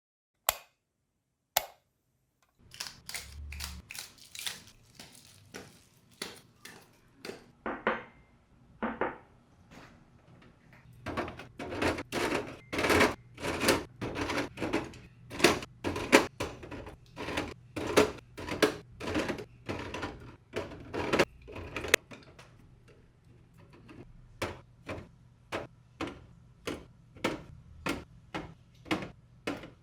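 A run of sharp knocks and clicks of items being handled and set down while restocking a fridge, two lone clicks at first, then an irregular stream of about one to two a second.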